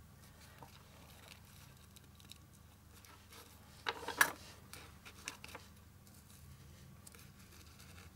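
Satin ribbon being handled and folded over a foam ball: faint rustling, with a brief burst of louder rustling and clicks about four seconds in.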